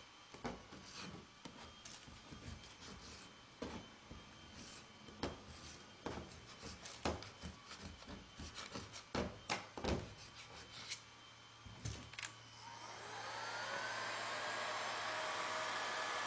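Hand paint scraper scraping and flicking heat-softened paint off the steel roof of a car, in faint, scattered scrapes and clicks. About thirteen seconds in, a hot-air gun switches on: a steady hiss with a whine that rises as its fan spins up.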